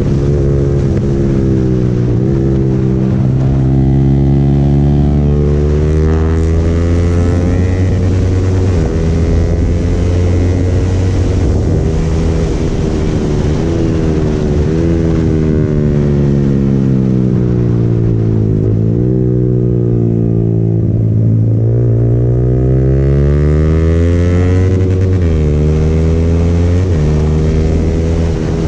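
Yamaha motorcycle engine running under way. Its revs climb and drop repeatedly, with sudden jumps in pitch at the gear changes. About two-thirds of the way through, the engine speed falls over several seconds as the bike slows on the engine, then it climbs again.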